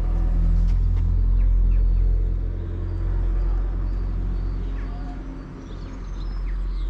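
A car engine running with a deep rumble, loudest for the first two and a half seconds and then easing off, with small birds chirping faintly over it.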